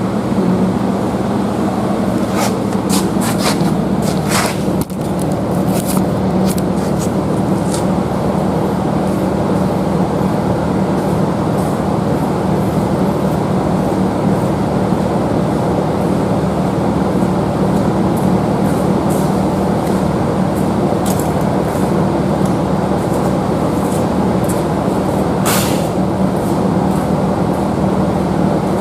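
A machine running steadily with a constant low hum, with occasional sharp clicks and knocks on top.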